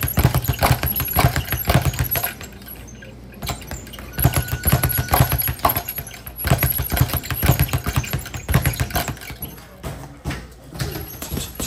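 Leather speed bag being hit in a fast, rattling rhythm, slapping back and forth against its rebound platform. The rhythm breaks off about two seconds in and resumes about two seconds later. Near the end come slower, spaced thuds of gloved punches on a heavy bag.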